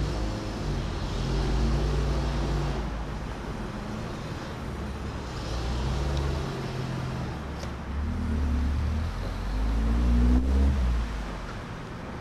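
Heavy vehicle engines running at low speed: a six-wheel ex-army truck and a 4x4 crawling over rough ground. The low engine note swells and eases about three times as they rev.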